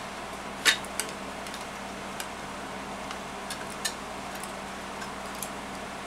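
Sharp clicks and light taps of a metal hard-drive caddy and plastic laptop parts being handled, about six in all with the loudest near the start, over a steady low hum.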